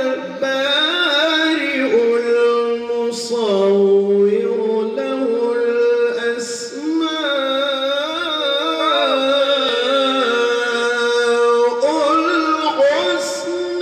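A man's solo Quran recitation (tilawah) in the melodic, ornamented style, sung into a handheld microphone. He holds long, gliding notes, with short breaks between phrases.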